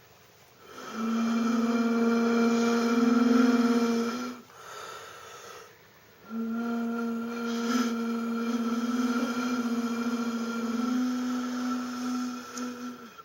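A loud, steady, horn-like droning tone of unknown origin, the kind reported as 'strange earth sounds': two long drones, the first about three seconds, the second about seven seconds, its pitch dropping slightly near the end.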